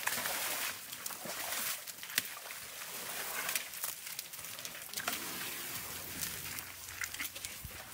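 Asian elephants walking along a muddy track, their heavy footsteps squelching and slapping in wet mud.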